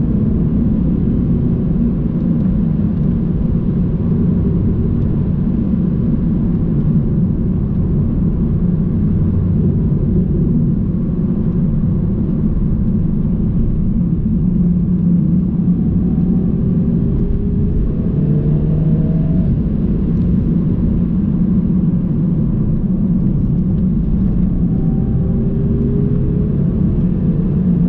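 Car engine and tyre rumble heard inside the cabin while driving, a steady low drone. A couple of times the engine pitch rises as the car accelerates, about halfway through and again near the end.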